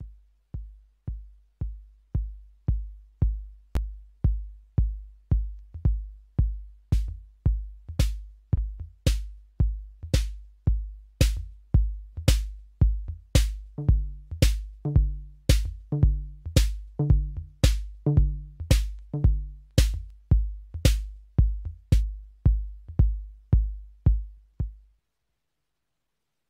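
Electronic drum pattern from a Eurorack modular synthesizer, mixed through a small four-channel mixer module: a steady kick about twice a second with sharp click hits over it. The level rises over the first few seconds as the channel knobs are turned up. From about 14 to 20 seconds in, a short repeating pitched bass note joins, and the whole pattern stops near the end.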